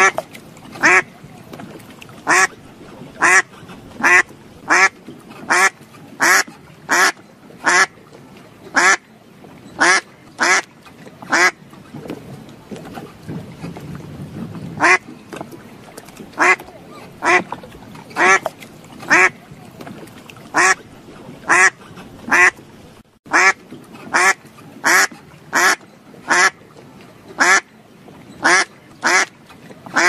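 A duck quacking over and over: a long series of single loud quacks, roughly one a second, with a pause of about three seconds near the middle.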